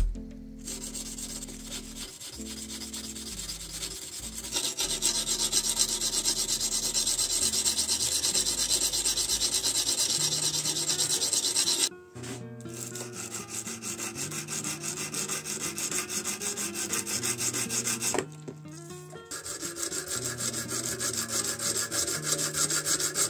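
Abrasive paper wrapped on a wooden block rubbed by hand in rapid back-and-forth strokes along a steel knife blade: hand-sanding a new lengthwise finish from tang to tip. The scraping stops briefly twice. Background music with low notes runs underneath.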